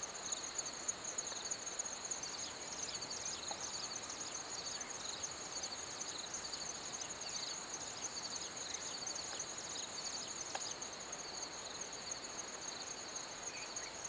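Insect chorus trilling steadily at several high pitches, with a few faint short chirps scattered through.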